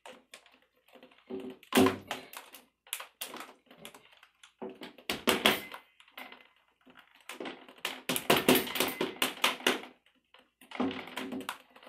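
Vinyl glazing bead of a Silverline window being pressed and snapped into its channel around the glass. Clusters of sharp plastic clicks and knocks, the densest run about eight to nine seconds in.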